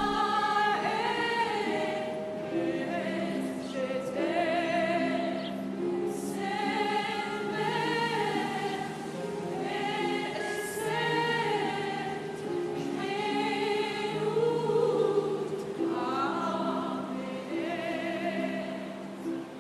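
Background music: a choir singing slow, long-held notes with vibrato over low sustained tones.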